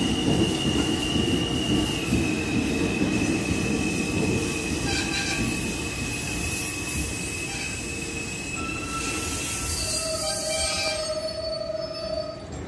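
R160 New York subway train pulling into a station: a heavy rumble of the cars with a steady high-pitched wheel squeal. Near the end the squeal drops to lower tones and the rumble fades as the train slows.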